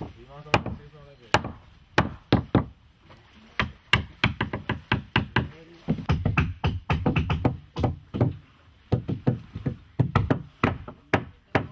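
Carpenter's tool blows on the wooden frames of a sewn boat's hull: irregular, sharp knocks that come faster in the second half, as a replacement frame is worked into place.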